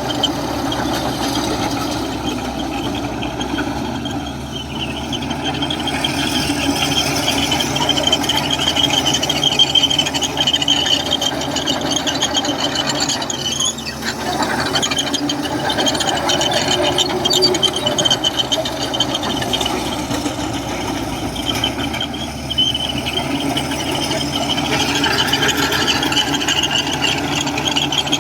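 Komatsu crawler bulldozer working, its engine running steadily under a high, wavering squeal and rattle from the steel tracks.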